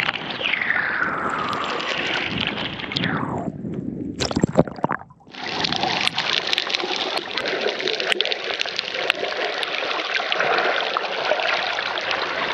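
Water sloshing and gurgling close to the microphone while snorkeling, with a quick cluster of knocks and splashes about four seconds in, then a steady rush of water.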